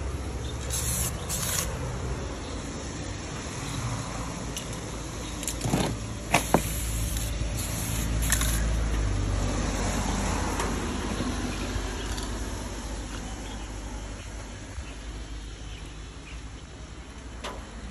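Aerosol spray-paint can hissing in several short bursts, with a few sharp clicks just before the middle. A steady low rumble runs underneath.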